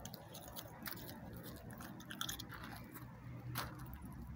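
A dog chewing and crunching food: faint, irregular crunches and clicks.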